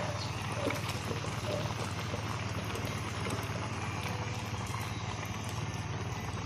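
Fish-and-ginger broth simmering in a pan under a layer of bok choy: a steady, dense bubbling.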